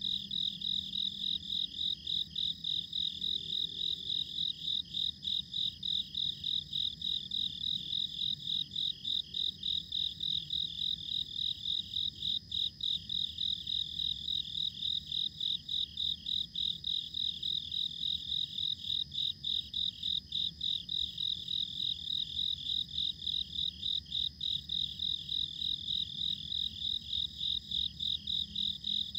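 Crickets chirping in a steady, rhythmic chorus: one high-pitched trill pulsing evenly about three times a second, over a faint low rumble.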